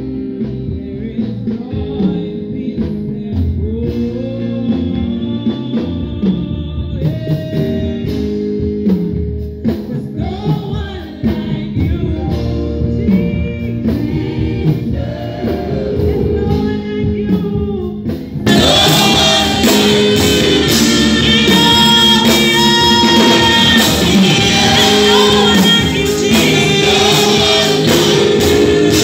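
A church choir singing gospel worship with band accompaniment. About two-thirds of the way in, the sound suddenly gets louder and brighter.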